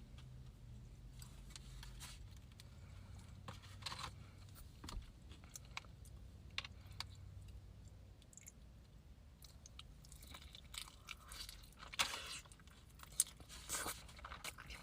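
Close-miked chewing and biting of a quesadilla: scattered wet crunches and mouth clicks, busiest in the last few seconds.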